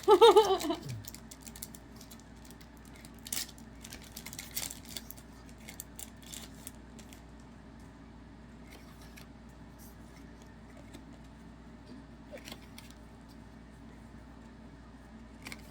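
A brief vocal sound at the start, then trading cards being handled and flipped through: scattered soft clicks and rustles of card stock.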